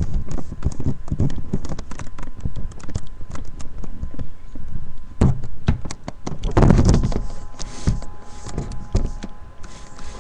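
A rapid, irregular run of clicks, knocks and rustling close to the microphone, heaviest about six to seven seconds in.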